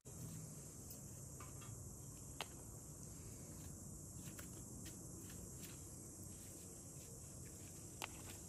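Quiet background with a steady high hiss and a few light clicks scattered through it, one about two and a half seconds in and one near the end.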